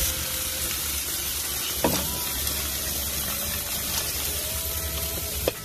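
Jerk chicken sizzling with a steady hiss on a charcoal grill as it is basted with marinade juice, over a low steady rumble. Metal tongs click sharply against metal twice, about two seconds in and near the end.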